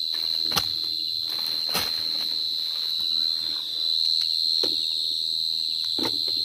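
Crickets calling at night: a steady, unbroken high-pitched trill, with a few soft knocks from digging or handling.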